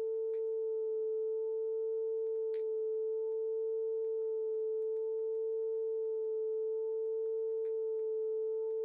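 Standard-pitch A, a 440 Hz test tone, played from an old vinyl test record on the CoolGeek VS-01 vertical turntable as one steady, unbroken tone, with a few faint ticks from the record's surface. The tone is played to check the turntable's speed for wow.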